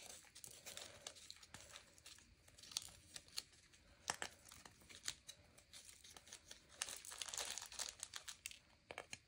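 Small plastic zip-top bag of resin diamond-painting drills crinkling faintly as it is handled, with scattered light clicks.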